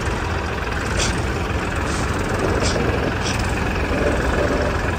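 Massey Ferguson tractor's diesel engine running steadily at road speed, with other tractors close by. A few short hisses come about one, two, and three seconds in.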